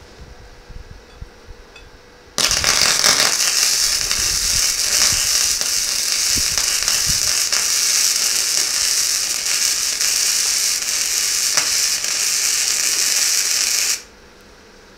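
MIG welder arc running a weld bead on steel plate: a loud, steady hiss that starts abruptly about two seconds in and cuts off abruptly about a second before the end.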